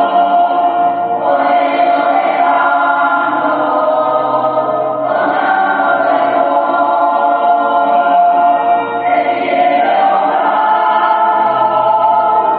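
Choir singing slow phrases of long held chords, moving to a new chord every few seconds.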